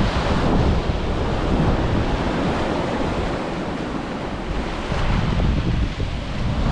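Ocean surf breaking and washing on the beach, with wind buffeting the microphone.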